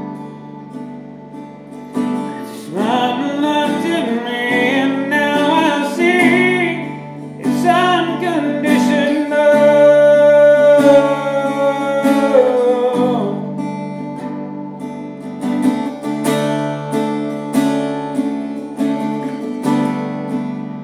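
Acoustic guitar strummed steadily, with a man's voice singing a drawn-out melodic line over it from about two seconds in until about halfway through, then the guitar carries on alone.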